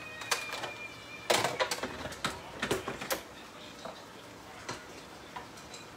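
Clatter of a countertop blender's jar being handled and set up: a quick run of sharp clicks and knocks over a couple of seconds, then a few scattered taps. A thin steady high tone sounds faintly for about the first second.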